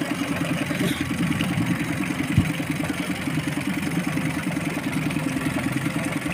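An engine running steadily at low speed, with an even, rapid chugging pulse. There is one short low thump about two and a half seconds in.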